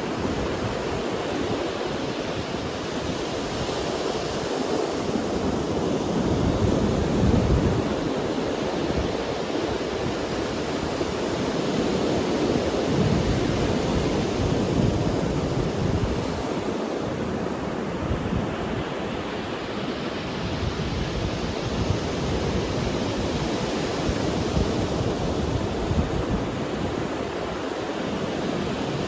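Sea waves breaking and washing up on a beach, a steady roar of surf that swells and eases as each wave comes in.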